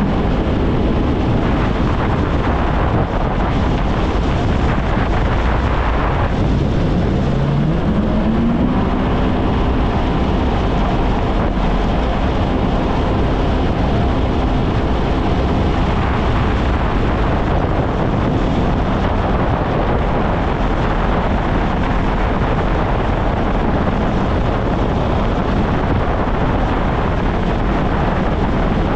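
Kawasaki Ultra 160 LX-S jet ski's naturally aspirated engine running under way, with wind buffeting the microphone. About six seconds in, the engine note rises as the throttle opens, then holds steady at the higher pitch.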